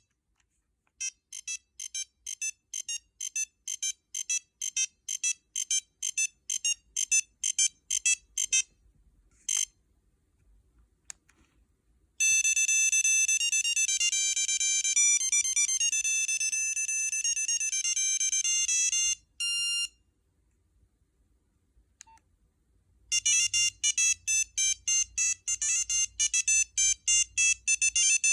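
Nokia 6340i cell phone playing three of its built-in ringtones in turn: electronic melodies of short high-pitched beeping notes. A quick tune of rapid, separate notes stops about nine seconds in, a smoother tune of held notes runs from about twelve to nineteen seconds, and another quick tune of rapid notes starts near the end.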